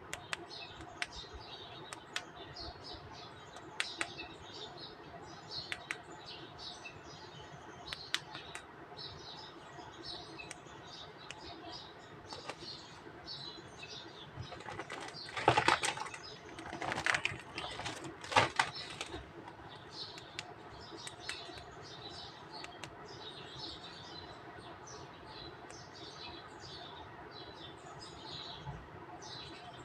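Small plastic toy figures being handled: scattered light clicks and taps, with three louder rustling bursts a little past the middle.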